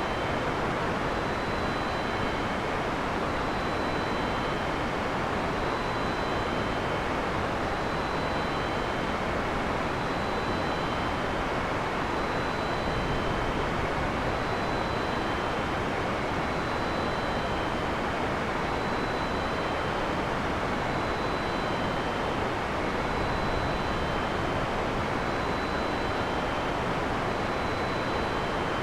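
Heavy rain falling steadily, an even hiss with no thunder. Faint short high chirps repeat about every two seconds over the rain.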